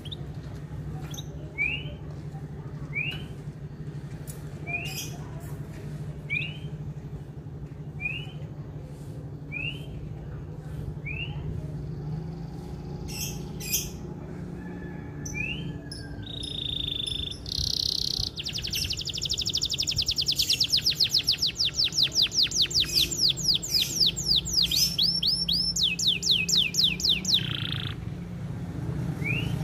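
Male canary singing: single short rising chirps about every second and a half, then, after a few clicks, a long fast rolling trill of rapidly repeated notes lasting about nine seconds, the loudest part. A steady low hum runs underneath.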